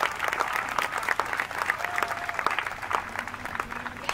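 Applause: many people clapping at once, a dense, steady patter of hand claps that eases off a little near the end.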